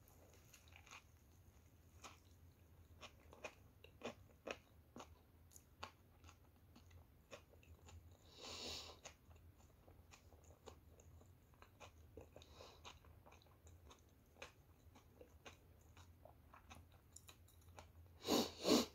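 Quiet close-miked chewing of a sandwich on soft homemade bread, with many small mouth clicks. There is a louder noisy sound lasting about a second about halfway through, and two louder sharp sounds near the end.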